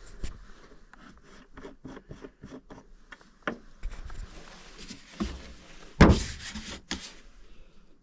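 Hard plastic tank caps on a Holzfforma chainsaw being twisted and worked on and off: a run of small clicks, then scraping and rubbing with a louder knock about six seconds in. The caps don't sit flush, so they give no clear feel of being seated.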